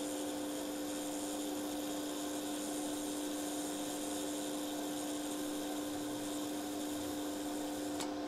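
TIG welding arc running at 75 amps on thin steel sheet: a steady hiss over a constant hum, which stops about 8 seconds in as the arc is broken.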